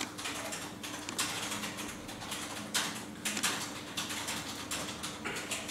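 Computer keyboard being typed on: quick, irregular clicks of keystrokes, over a steady faint hum.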